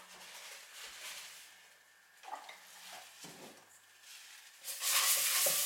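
Kitchen handling noises as a plastic bottle of cooking oil is brought over a stainless steel mixing bowl: soft rubbing and a few light knocks, then a louder rustling hiss for the last second or so.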